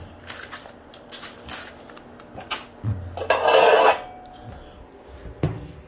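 Light metallic clattering and knocks, as of metal parts and tools being handled and bumped. There is a short scraping rush a little past halfway and a sharp knock near the end.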